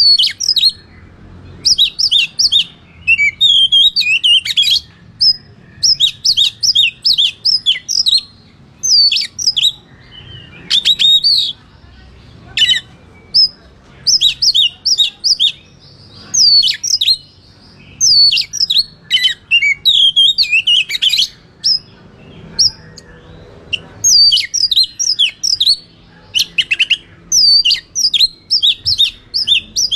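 Oriental magpie-robin singing its fighting song: rapid runs of high chirps and whistles in short bursts with brief pauses between them, repeated throughout.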